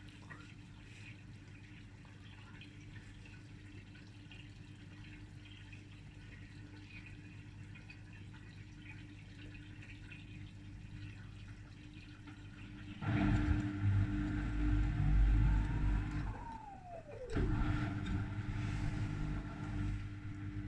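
Gorenje WaveActive washing machine tumbling a drum full of wet, heavy snow: a quiet steady motor hum, then about thirteen seconds in the drum turns hard and loud, the motor whine rises and falls away, stops briefly and the drum starts turning again.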